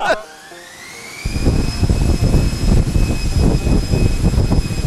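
Electric ducted fans on a thrust test stand spinning up: a whine rises in pitch over the first two seconds and then holds steady, and about a second in a loud low rush of moving air sets in under it.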